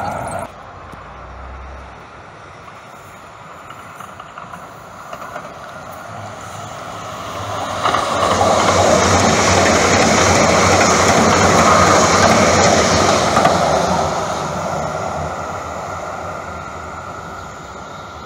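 Electric light rail train passing on the tracks. It grows louder from about six seconds in, is loudest in the middle, then fades away over the last few seconds.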